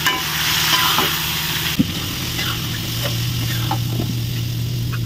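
Anchovies, eggplant and tomato frying in a wok, sizzling while a metal spatula stirs and scrapes against the pan. There is a sharp knock about two seconds in, after which the sizzle grows quieter, with a steady low hum underneath throughout.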